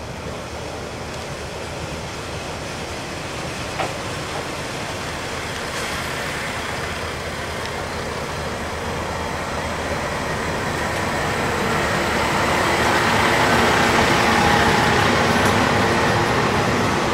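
Shigaraki Kohgen Railway SKR300-type diesel railcar approaching along the platform and drawing alongside. Its engine and wheel noise grows steadily louder as it nears and is loudest about three-quarters of the way through.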